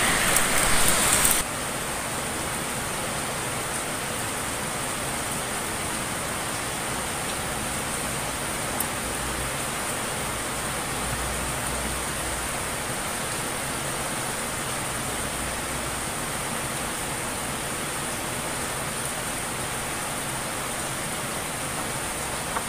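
Steady background hiss, even and unchanging, a little louder for about the first second and a half, with one faint click about nine seconds in and another near the end.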